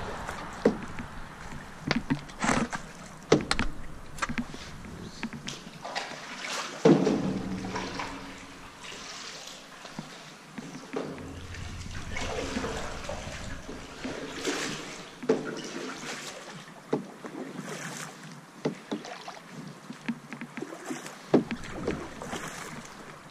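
Canoe being paddled through calm water: paddle strokes splashing and dripping, with irregular knocks of the paddle against the canoe's hull. The loudest knock, about seven seconds in, rings briefly.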